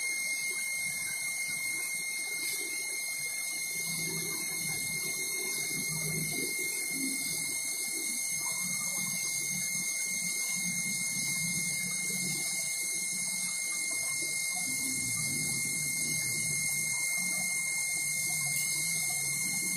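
Steady background hiss with a constant high-pitched whine, level throughout, and only faint low sounds beneath it.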